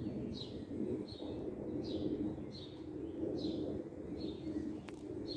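A small bird chirping over and over, one short high note roughly every three-quarters of a second, over a steady low background rumble.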